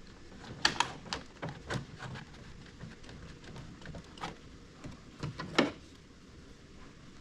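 Scattered clicks and knocks of tools and parts being handled during reassembly, irregular and unrhythmic, loudest a little under a second in and again about five and a half seconds in.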